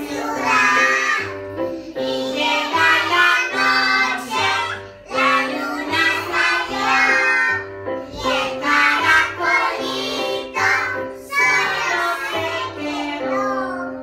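A woman and a group of young children singing a children's song together, accompanied by an electronic keyboard playing chords and a bass line in an even beat.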